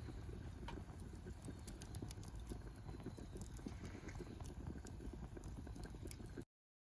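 Food simmering and bubbling in a pot over a campfire, with scattered small crackles and ticks; the sound cuts off abruptly about six and a half seconds in.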